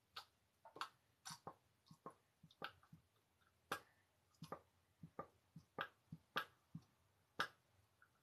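A stiff plastic cap on a small paint bottle being twisted and worked by hand: a string of about twenty short, sharp clicks, irregularly spaced.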